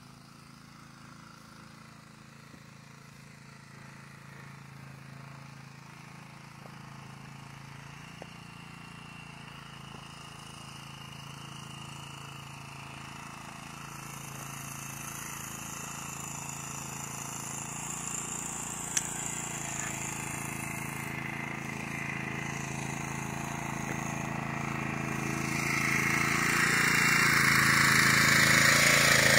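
A steady engine hum growing steadily louder, joined about 26 seconds in by a loud, continuous crackling hiss of arc welding on the steel fence pipe.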